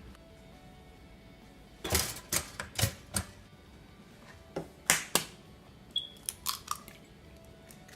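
Irregular sharp clicks and knocks in small clusters, beginning about two seconds in and recurring around five seconds and again between six and seven seconds.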